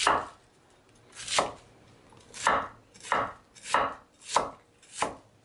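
Chef's knife slicing green cabbage into shreds on a wooden cutting board: seven separate cuts, slow at first, then coming about every half second from around the middle on.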